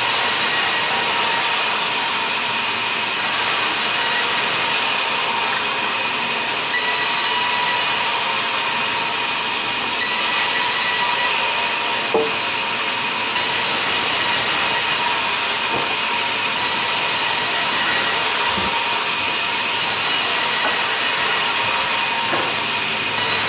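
Sawmill band saw running and cutting lengthwise through a log, a steady loud hiss and whine, with a single sharp knock about halfway through.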